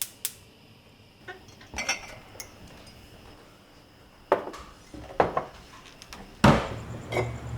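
A quick run of sharp clicks, then scattered knocks and clinks, the loudest a thump about six and a half seconds in.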